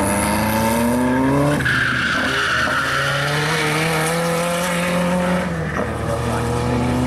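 Renault 5 Turbo rally car's turbocharged four-cylinder engine under hard acceleration as it passes and pulls away. The revs climb, then drop with a gear change and a burst of hiss about a second and a half in. The engine then pulls steadily, eases off a little over five seconds in, and climbs again near the end.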